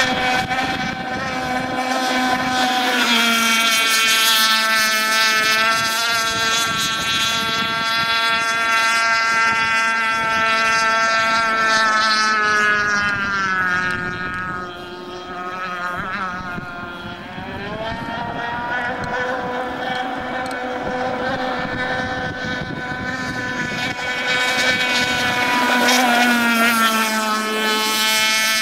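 Pro Boat Shockwave 55 RC boat's two-stroke gas engine running at speed with a high, even whine. It eases off and dips in pitch around the middle, then picks up and runs louder again near the end.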